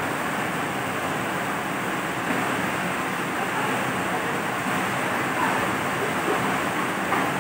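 Heavy rain pouring down steadily, a dense, even hiss with no breaks.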